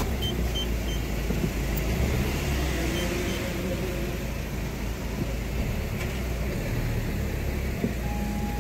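A car driving off slowly, with a steady low engine and road rumble.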